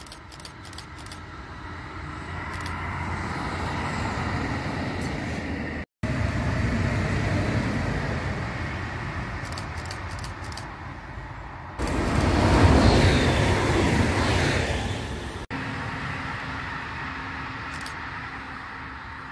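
Electric passenger trains, Karlsruhe Stadtbahn tram-trains and an electric multiple unit, running along the line in a series of short clips: wheel and running noise grows as a train approaches, then cuts abruptly to the next. The loudest stretch is a burst of rushing noise from about twelve to fifteen seconds in. A steady motor hum follows as a tram-train rolls up.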